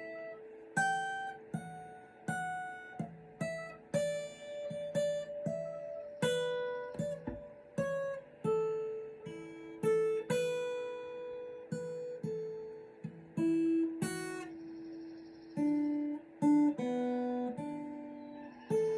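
Acoustic guitar played without singing: picked notes and chords ringing out one after another, each struck sharply and left to fade.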